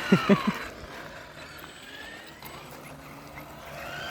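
Electric RC car motors whining, the pitch rising and falling as the trucks speed up and slow down. There are a few short, loud knocks in the first half second.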